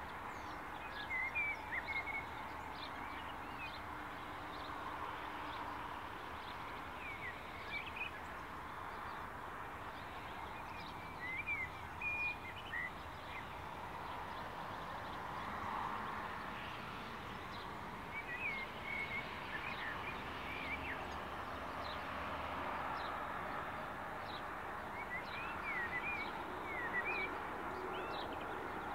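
A bird sings a short run of chirping notes four times, roughly every seven seconds, over a steady background of distant noise.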